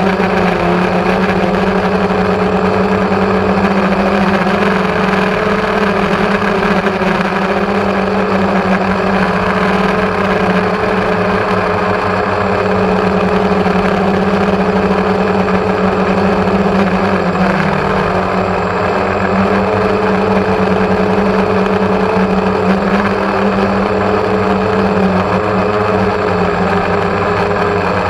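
Multirotor drone's electric motors and propellers buzzing steadily in flight, heard close up through the GoPro carried on the drone. The pitch wavers slightly and dips briefly about two-thirds of the way through.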